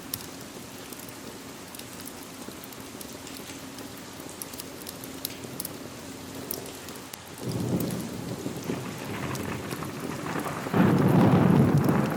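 Steady rain falling, with scattered sharp clicks. A low rumble of thunder builds about halfway through and rolls loudest near the end.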